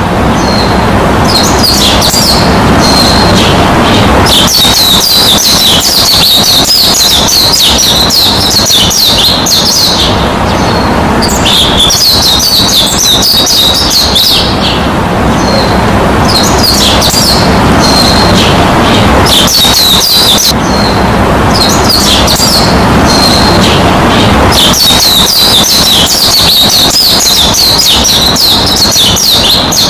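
Loud, continuous chirping and twittering of many small songbirds, coming in runs of a few seconds with brief pauses, over a steady rushing background noise.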